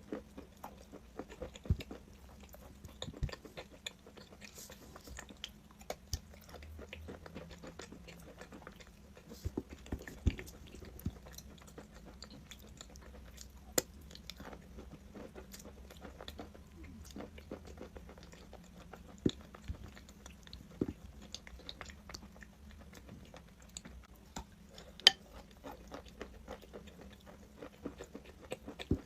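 A person biting and chewing crunchy chalk close to the microphone: a continuous run of irregular crackling crunches and clicks, with a few sharper, louder snaps.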